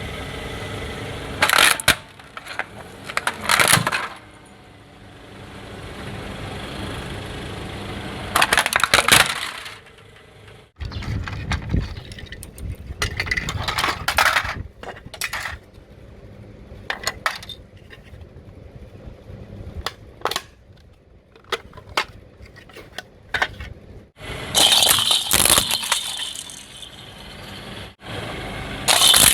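A car's tyres rolling over brittle objects and toy cars, crushing them in several separate bursts of crunching, cracking and clinking, with a low rumble of the car between the bursts.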